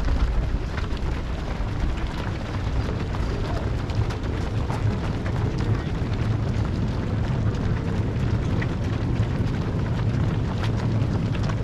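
Wind buffeting the microphone, a steady heavy low rumble that rises and falls. Faint voices and scattered light taps lie under it.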